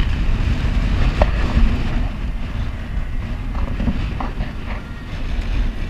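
Strong wind buffeting the microphone on the bow of a sailing catamaran, a steady low rumble, with the sea rushing past the hulls.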